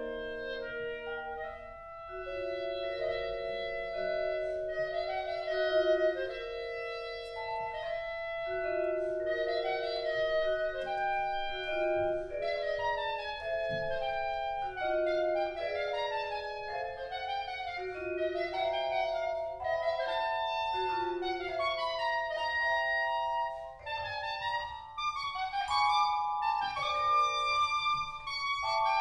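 Clarinet and vibraphone duo playing: the clarinet holds long melodic notes over struck, ringing vibraphone notes.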